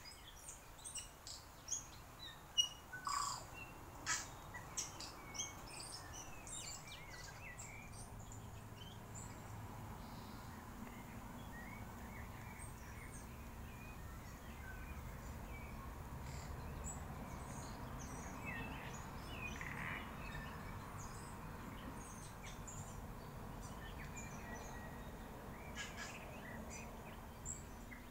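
Several wild birds chirping and calling in bush, short calls scattered throughout over a steady low background noise. A few sharp taps stand out in the first few seconds.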